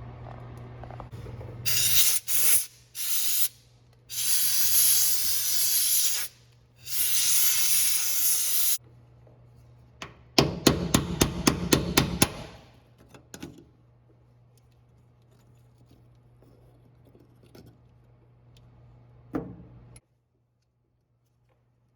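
An aerosol spray can spraying in three bursts of a few seconds each, followed by a quick run of about a dozen sharp taps.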